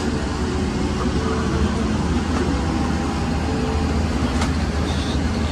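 Steady cabin noise inside a Boeing 777-300ER: a constant, even rush of air and machinery, heaviest in the deep low end. A single short click comes about four seconds in.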